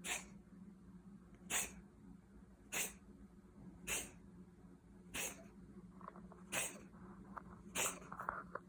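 A cat coughing in a regular series of short, sharp hacks, seven of them about a second and a quarter apart.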